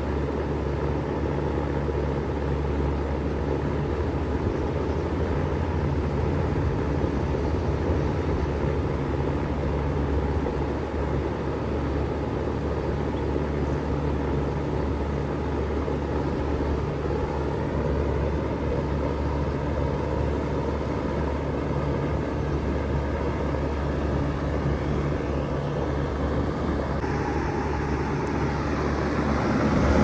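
Bard 3-ton wall-mounted heat pump running in cooling mode: a steady low hum under even fan air noise, growing louder near the end.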